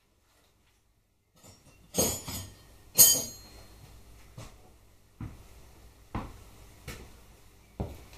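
Metal hand tools clattering as spanners are picked out and handled: two loud metallic clanks with a brief ring, then a run of softer knocks about once a second.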